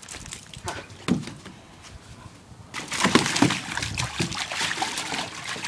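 Water splashing and sloshing in a plastic kiddie pool as a dog moves through it, starting about three seconds in and carrying on; a few faint knocks come before.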